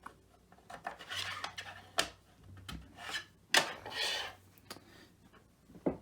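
Plastic packaging rustling as figure parts are handled and unwrapped, in two spells of rubbing and crinkling, with a few sharp clicks and knocks.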